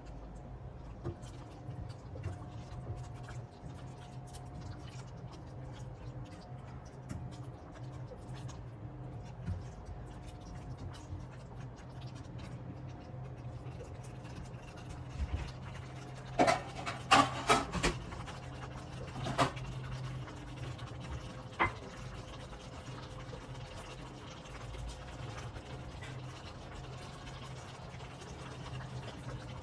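Kitchen cooking sounds: a steady low hum with a quick cluster of sharp clinks and clatters of utensils or dishes about halfway through, then two single clinks.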